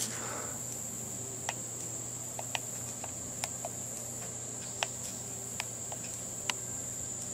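A steady high-pitched whine over a low steady hum, with faint irregular ticks about once a second.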